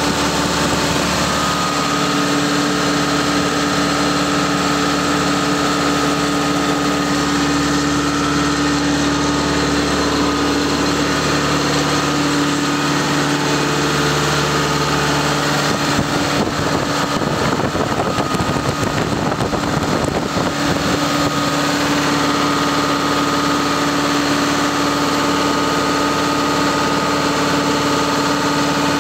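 Caterpillar C4.4 four-cylinder diesel engine of a power unit running steadily. A little past the middle, the sound turns rougher and more uneven for a few seconds.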